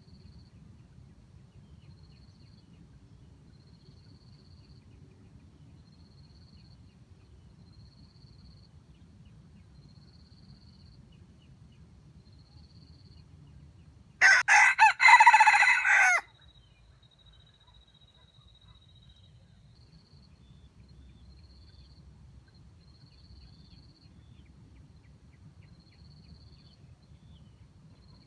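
A red junglefowl rooster crows once near the middle, a loud crow of about two seconds that breaks off sharply. Faint insect chirps repeat every second or so in the background.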